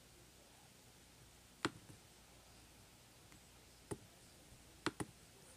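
Computer mouse clicking: single clicks about one and a half and four seconds in, then a quick double click near the end.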